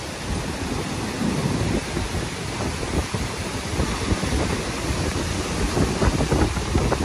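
Rough storm surf breaking close by, a steady rushing wash of waves, mixed with gusty wind buffeting the microphone.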